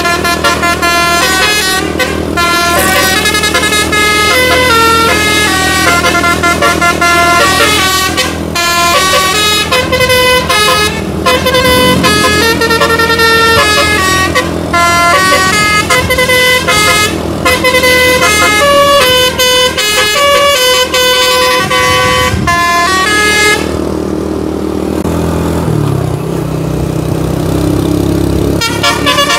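Indonesian bus's basuri 'telolet' multi-tone air horn playing a fast tune of changing notes over the bus's running engine. About 24 seconds in the horn stops, leaving the engine, and the tune starts again near the end.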